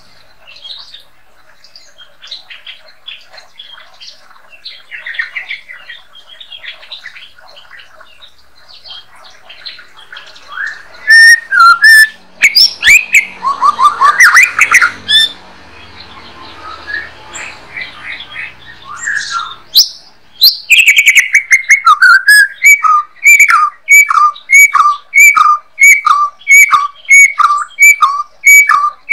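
White-rumped shama (murai batu) singing in a cage: soft, quiet warbling at first, breaking into loud song about a third of the way in. Near the end it repeats one downward-sliding note quickly and evenly, about two a second.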